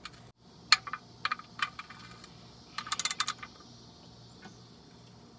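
Sharp metallic clicks and a quick rattle from the steel drain plug and hand tools being worked at the oil pan as the drain plug is reinstalled: a few separate clicks, then a fast run of about eight clicks around three seconds in.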